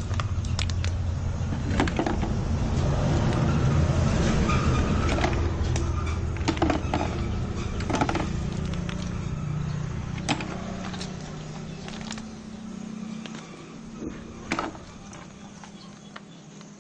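A vehicle engine rumbles steadily, then fades away about three-quarters of the way through. Apple snail shells click against each other now and then as they are sorted by hand.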